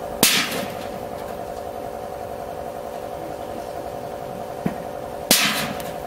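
Pitched baseballs strike a sheet-metal roof vent twice, each a sharp metallic bang with a short ring, about five seconds apart, over a steady mechanical hum. Each bang is preceded by a softer knock about half a second earlier.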